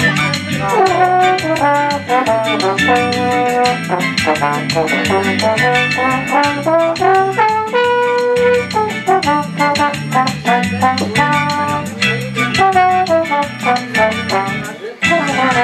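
Trombone playing a melodic solo over backing music with a bass line and steady percussion.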